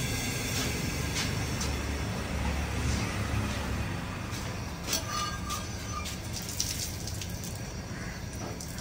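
Large aluminium pot of chickpeas at a rolling boil, foam rising over the top: a steady bubbling hiss over a low rumble, with a few light clicks about halfway through.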